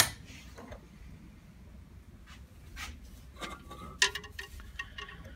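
A sliding wooden cupboard door knocks as it is opened, then faint scrapes and small clicks as coat hangers with metal hooks are moved along a metal clothes rail, with a sharper clink about four seconds in.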